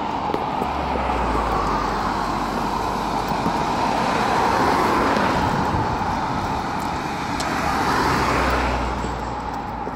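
Road traffic on the adjacent bridge roadway: cars passing with a steady tyre-and-engine noise, getting louder about halfway through and again near the end.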